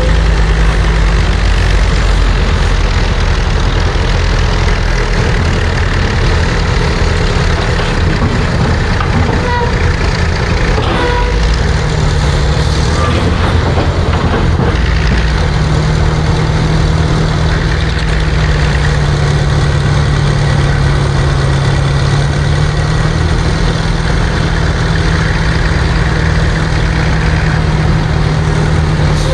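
Vintage cable-operated power shovel's engine running steadily as it digs and hoists a dipper of dirt. The engine's low hum grows stronger about halfway through, as the full dipper is hoisted.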